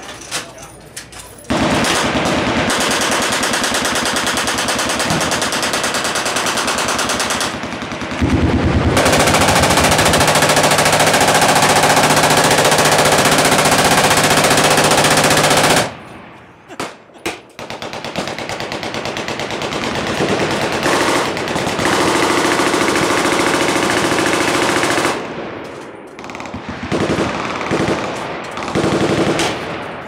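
Massed machine-gun fire from the firing line, many automatic weapons shooting at once so the shots run together into a continuous barrage. About halfway through it dies down to a few single cracks, then builds back up. It breaks into separate bursts near the end.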